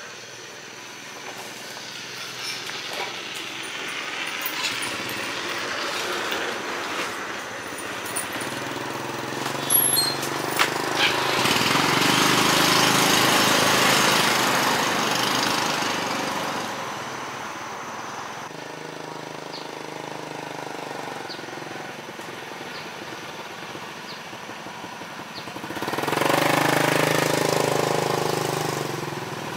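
Small motorbike engine running, swelling louder in the middle and again near the end, with a few sharp clicks about ten seconds in.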